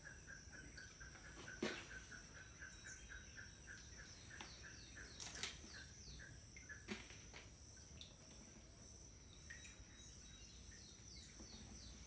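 Faint outdoor ambience of insects trilling steadily, with birds chirping in short falling notes and a rapid pulsing call for the first few seconds. Three soft knocks stand out, about two, five and seven seconds in.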